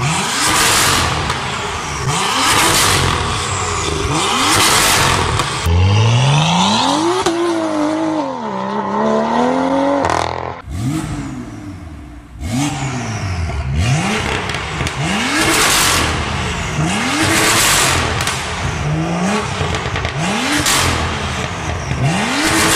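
BMW F87 M2's turbocharged inline-six revved through a Fi Exhaust valved cat-back and catless downpipe: sharp throttle blips about every two seconds, each rising and falling quickly in pitch. Near the middle it holds one longer rev that wavers in pitch, drops away briefly, then the blips start again.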